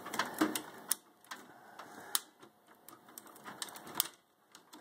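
Irregular clicks and light knocks of PC power-supply cables and their plastic connectors being handled inside a computer case, with a few sharper single clicks about two and four seconds in.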